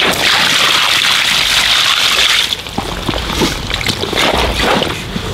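Water splashing around a large carp held at the surface, loud for about the first two and a half seconds, then settling into lighter splashes and drips.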